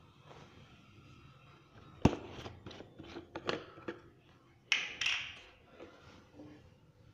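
Plastic screw cap of a cooking-oil bottle being handled and twisted off: a sharp knock about two seconds in, a run of small plastic clicks, then two louder scraping knocks near five seconds.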